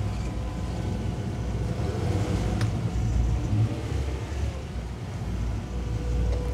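Towboat's engines running steadily under load while towing a large yacht, a low rumble mixed with the rush of the wake.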